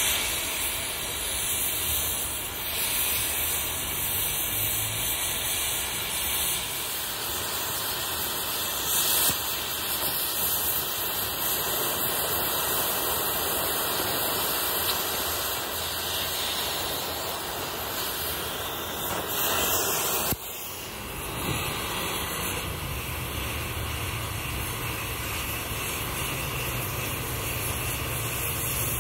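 Oxy-fuel cutting torch hissing steadily as its oxygen jet cuts through thick steel plate, with a brief dip in the sound about two-thirds through before the hiss carries on.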